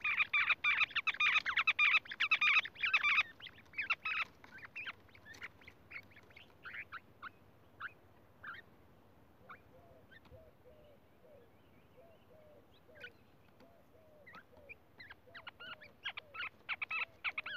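Bird calls: a fast, dense run of short sharp chirps for about three seconds, then scattered chirps with a string of soft low notes in the middle, and another quick run of chirps near the end.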